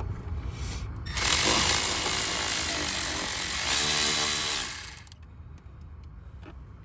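Cordless power driver spinning a long bolt down into the intake mounting for about four seconds, starting about a second in and stopping near the end. It is a steady motor whine over the grinding of the bolt.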